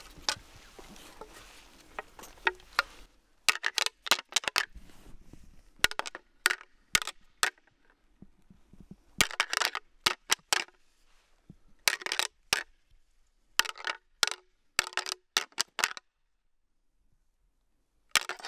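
A pair of fallow deer antlers clashed and rattled together, imitating bucks sparring to draw a buck in. It comes in short bursts of rapid clicks with pauses between them, stops a few seconds before the end, and starts again right at the end.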